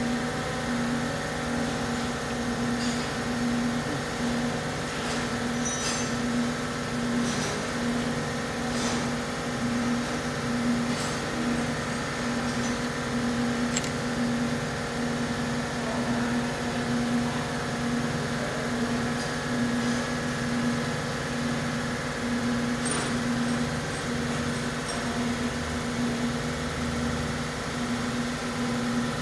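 Steady drone of a running motor with a low, slightly pulsing hum. A few light metal clicks come and go as engine parts are handled.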